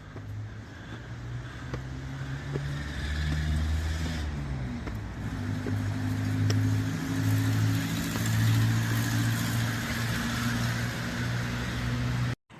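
Motor vehicle engine running close by, its low hum growing gradually louder, with a shift in engine pitch about four seconds in. The sound cuts off abruptly near the end.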